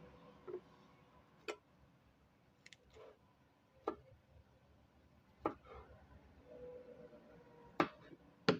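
A kitchen knife knocking on a cutting board while cutting onion: a string of short, sharp, irregular knocks about a second apart, the two loudest near the end.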